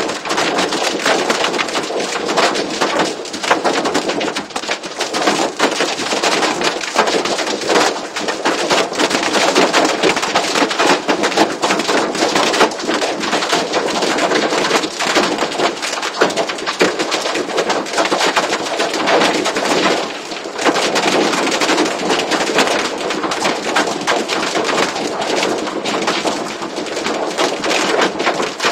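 Hail and torrential rain pelting down, a loud, unbroken clatter of countless rapid impacts.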